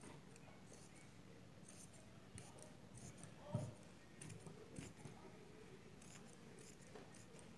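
Large tailor's shears snipping through folded cloth on a table: a quiet, irregular run of short crisp cuts, with a soft low thump about halfway through.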